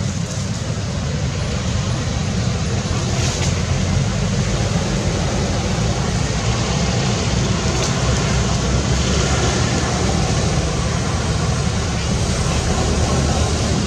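Steady outdoor background noise: a loud, fluctuating low rumble with an even hiss over it, and no clear monkey calls.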